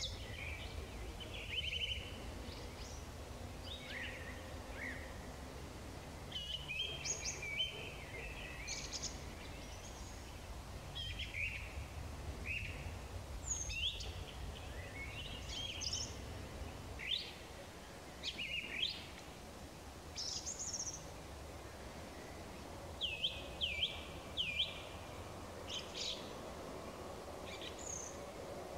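Evening songbirds singing: many short chirps and quick whistled notes from several birds, over a low rumble that eases after about the first half.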